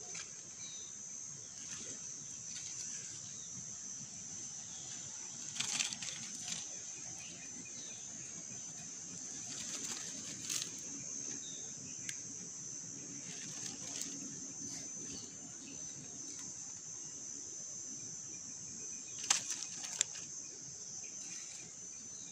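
Insects chirring steadily at a high pitch, with short rustling clicks now and then; the loudest are a pair about three-quarters of the way through.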